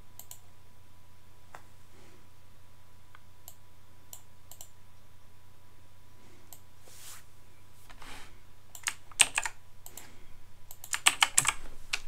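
Typing on a computer keyboard: a few scattered key clicks at first, then a quicker run of keystrokes from about eight seconds in, over a low steady hum.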